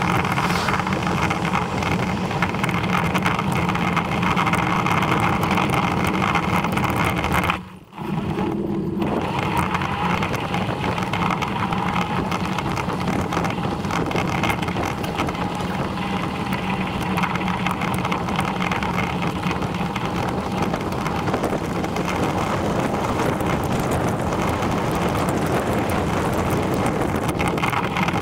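Steady running noise of a vehicle travelling along a country road, even throughout. It drops out sharply for about a second, roughly eight seconds in.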